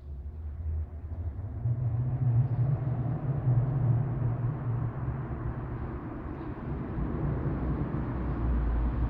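BMW N55 turbocharged inline-six breathing through an aftermarket AA exhaust, a deep burble that grows louder over the first two seconds as the car drives toward the listener in a concrete parking garage.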